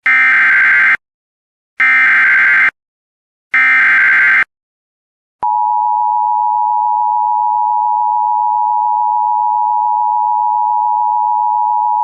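Emergency Alert System SAME header: three shrill digital data bursts of about a second each, a second or so apart, marking the start of a new alert. About five seconds in, the steady two-tone EAS attention signal starts and holds.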